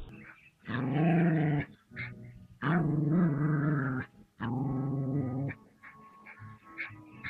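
Dog growling in three long, drawn-out growls of about a second each, with short quiet gaps between.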